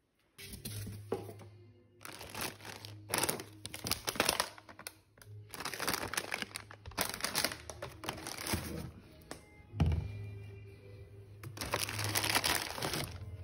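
Plastic packaging crinkling and rustling in irregular handfuls, over background music.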